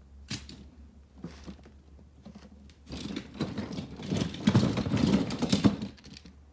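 Toy monster trucks clattering together as a hand rummages through a pile of them: a few separate clicks at first, then about halfway through a dense rattle of small plastic and metal toys knocking against each other.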